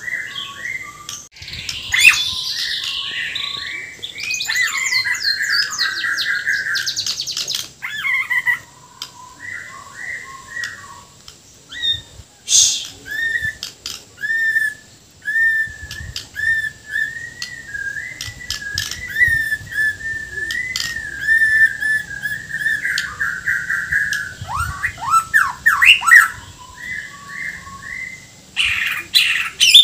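Bornean white-rumped shama singing a loud, varied song full of imitated phrases: whistled notes, fast chattering trills and, about 25 seconds in, a run of harsh rasping notes.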